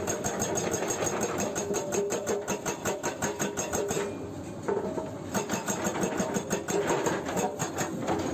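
Excavator-mounted hydraulic breaker hammering rock in rapid, even blows over the steady drone of the Hyundai 210LC-7's diesel engine. The blows stop briefly a little before halfway, then resume.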